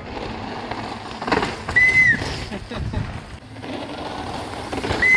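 Downhill mountain bike rattling over a dirt track, with a few knocks and spectators' voices. Two short high whistle-like tones sound, one about two seconds in and another near the end.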